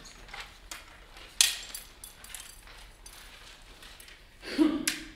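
Quiet room handling sounds as the pages of a conductor's score are turned, with a sharp knock about one and a half seconds in and a short louder knock-like burst near the end.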